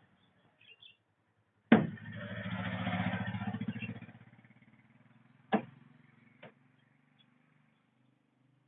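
A sharp knock, then a motor-like hum that swells and fades over about two seconds, followed by another sharp knock and a fainter one.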